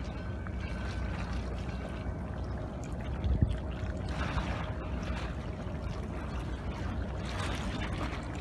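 Harbour-side ambience: wind buffeting the microphone over water lapping against a concrete quay, with a short thump about three and a half seconds in.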